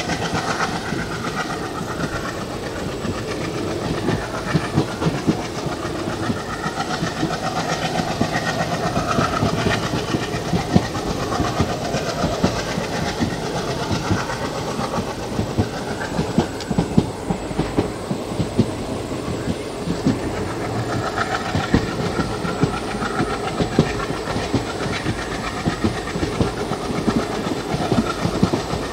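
Indian Railways passenger coach running along the line, heard from beside the coach: a steady rumble and clatter of the wheels on the rails with many short knocks, over rushing air.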